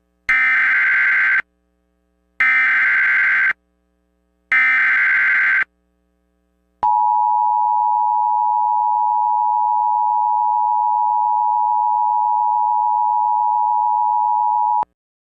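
Emergency Alert System opening tones announcing a tornado warning. Three short bursts of SAME header data, each a harsh digital warble about a second long, come first. They are followed by the EAS two-tone attention signal, a steady dual tone held for about eight seconds that cuts off suddenly.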